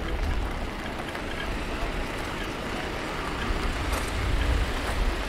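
Steady rainy city street ambience: an even hiss of rain with a low rumble underneath.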